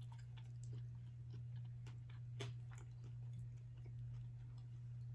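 Close-miked chewing: scattered small mouth clicks of someone eating, over a steady low hum.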